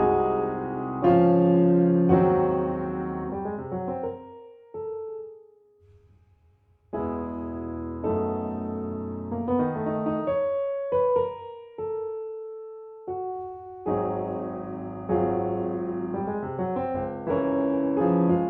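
Background piano music: a soft piano piece that thins to a few single notes and nearly stops about five seconds in, then picks up again with fuller chords.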